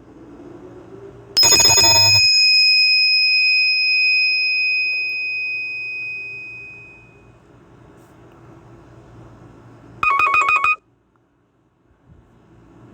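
Nokia E5 phone tones played from a Samsung Galaxy A51's speaker. About a second in comes a single bell-like chime that rings on and fades over several seconds. Near the end comes a short burst of rapid beeps lasting under a second.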